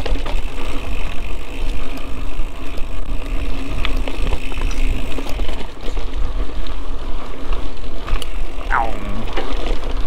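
Mountain bike rolling along a dirt trail: steady rumble of the tyres and frame with wind buffeting the mic, and a short falling squeal near the end.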